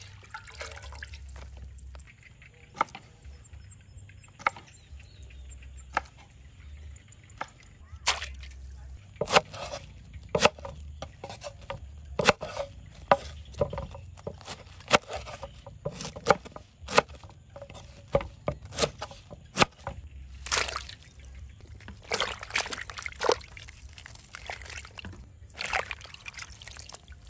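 A large knife chopping a cabbage on a wooden cutting board: a run of sharp, irregular chops. Toward the end, water sloshes and splashes as the cabbage pieces and green beans are washed by hand in a basin.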